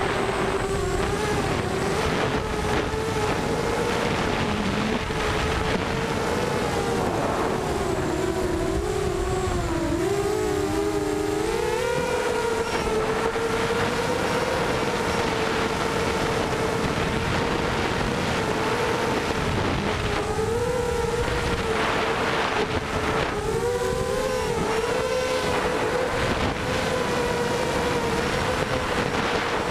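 Lumenier QAV250 racing quadcopter's four brushless motors and 5-inch props whining, heard from its onboard camera, the pitch rising and dipping with throttle and splitting into several separate tones when the quad turns. Wind rushes over the microphone underneath.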